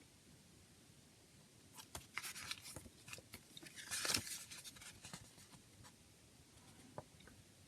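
A CD and its packaging being handled: a run of sharp clicks and rustles, loudest about four seconds in, then a few single ticks.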